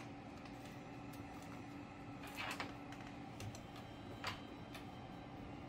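A few faint, scattered clicks and taps over a steady low hum.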